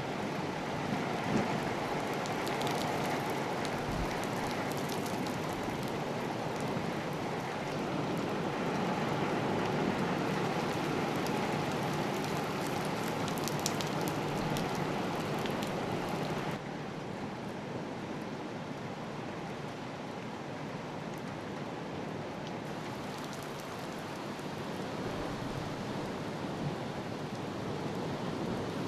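Typhoon storm ambience: a steady rushing noise of heavy rain and rough surf breaking against a concrete seawall. It drops abruptly in level a little past halfway, and the hiss of rain comes back stronger near the end.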